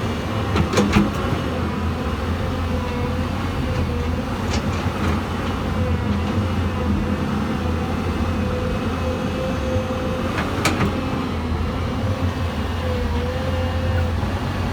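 Hyundai Robex 220-9SH excavator's diesel engine running steadily with a wavering whine over its rumble, while loading dirt. Sharp clanks come about a second in and again about ten seconds later.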